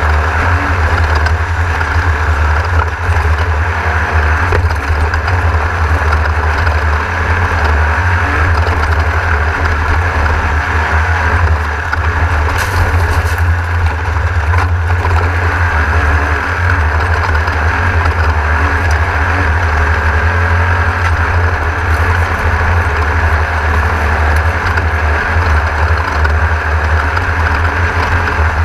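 Class 1600 off-road race buggy's air-cooled 1600 cc VW engine running hard at racing speed, heard from inside the car. It is a loud, steady drone that holds without large rises or falls in revs.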